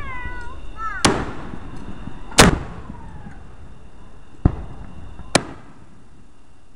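Fireworks exploding: four sharp bangs a second or two apart, the second the loudest, each trailing off in an echo.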